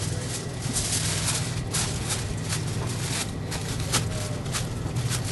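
Aluminium foil crinkling and rustling in irregular bursts as barbecue ribs are double-wrapped, over a steady low hum.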